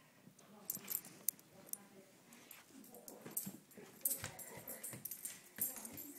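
Samoyed dog whimpering, with many sharp clicks and scuffles around it.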